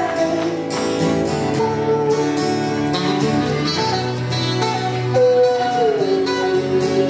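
Live acoustic music: acoustic guitars strummed in a steady rhythm, with long held melody notes above them, one sliding down in pitch about six seconds in.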